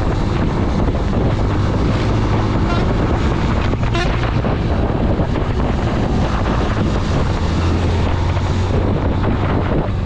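Motorcycle engine running steadily while riding, with heavy wind noise buffeting the action-camera microphone.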